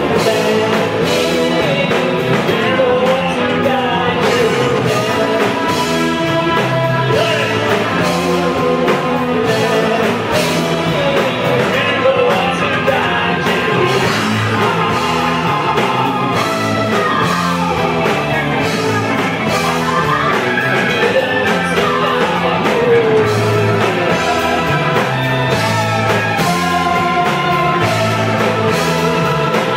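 Live doom metal band playing: electric guitar, bass guitar and drum kit, with a vocalist singing over them.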